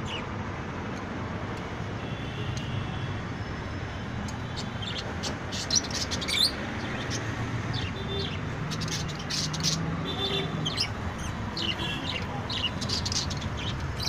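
Small caged parrots (lovebirds and budgerigars) chirping: clusters of short, sharp high chirps around five to seven seconds in and again from about nine seconds on, over a low steady background hum.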